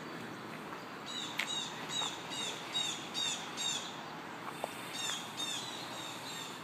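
A small bird calling over and over in a run of short, high, down-slurred chirps, about two or three a second, with a short pause about two-thirds of the way through, over a steady background hiss.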